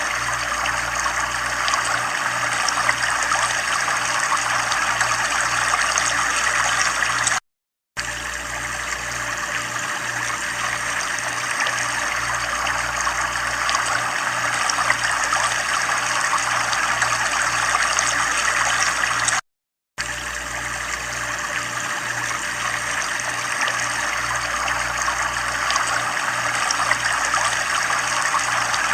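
Running water trickling steadily, with a low hum that pulses underneath. The sound cuts to silence for about half a second twice, roughly twelve seconds apart.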